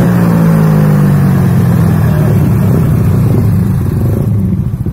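Yamaha scooter's single-cylinder engine running through a ROB1 stainless aftermarket exhaust, its pitch falling as the revs drop back after a blip. It settles into a lower, pulsing idle near the end.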